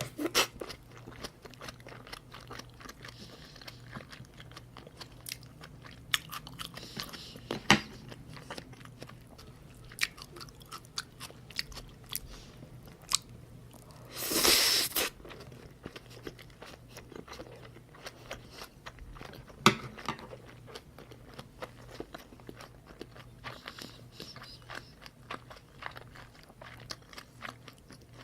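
Close-miked chewing of salmon and salmon rolls: soft, wet mouth clicks and smacks one after another. About halfway through there is a louder rush of noise lasting about a second.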